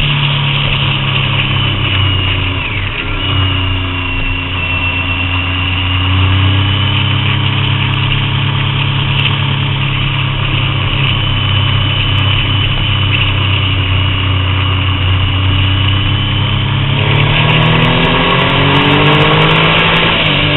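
Triumph Daytona 675's three-cylinder engine running under way. The engine note falls a few seconds in as the throttle eases, picks up again, holds steady, then climbs as the bike accelerates near the end.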